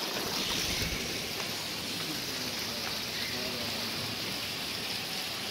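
Steady rush and trickle of water flowing from a stone fountain into its basin.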